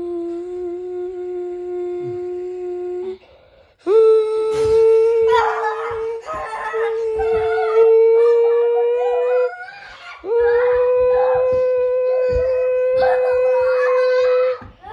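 A person's voice imitating a plane's engine at takeoff: a long held hum-like whine in three long notes, each pitched higher than the last, with short breaks between them. Rustling and knocking noises sound over the later notes.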